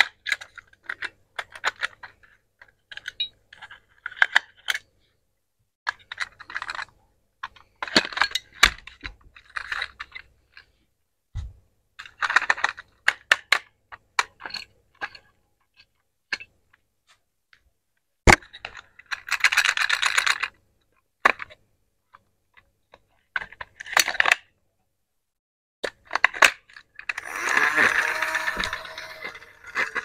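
AA batteries clicking and rattling into the plastic battery compartment of a small toy sewing machine, in irregular bursts of sharp clicks and clatter with short pauses between them. Near the end a longer, denser stretch of fast, even ticking starts, the toy's mechanism running.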